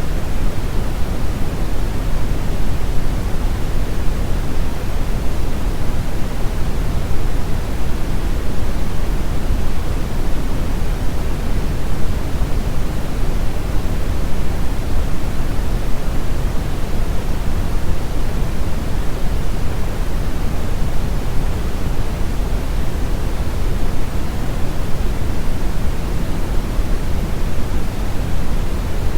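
Steady synthetic noise sound effect, a constant even hiss and rumble weighted toward the low end, like pink noise, with no changes or events.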